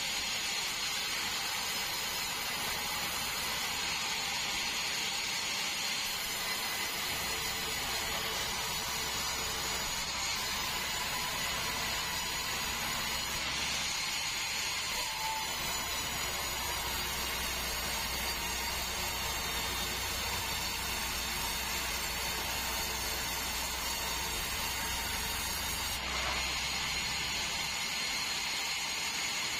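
Sawmill band saw running steadily, sawing a large meranti log, with a continuous hiss and a low hum that grows stronger about seven seconds in and eases off near the end.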